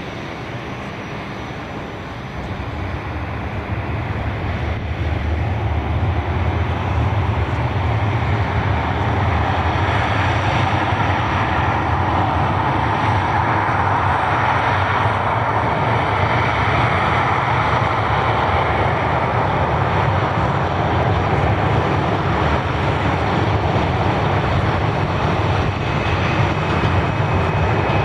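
Jet airliner engine noise that swells over the first few seconds and then holds as a steady roar, with a low rumble underneath.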